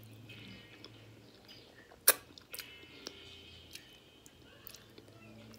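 Quiet mouth sounds of someone eating with her fingers: chewing, and finger-licking smacks. One sharp click about two seconds in, followed by two smaller ones.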